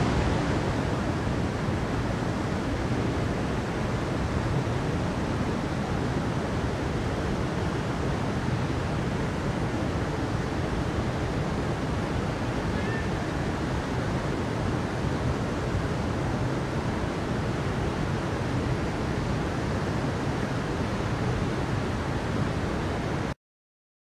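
Steady rush of a stream running over rocks; it cuts off suddenly near the end.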